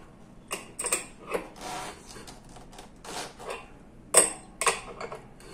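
Irregular metallic clicks and clinks of a nut being turned on the axle of a gearless e-bike hub motor, drawing the motor's side cover shut against the pull of its magnets. The sharpest clink comes about four seconds in, with another just after.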